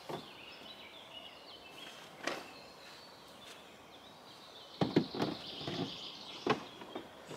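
Birds singing in the background, with a few light knocks and clatters from gear being handled: one about two seconds in, several close together around five seconds, and one more a little later.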